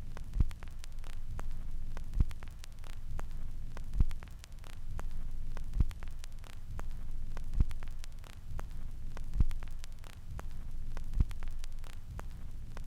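Vinyl record surface noise on a turntable: a low rumble and hum under a scatter of fine crackles, with a louder pop about every two seconds, once per turn of the record.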